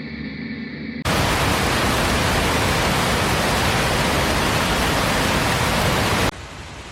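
Steady, even rushing noise of water with no pitch, cutting in abruptly about a second in and cutting out abruptly near the end.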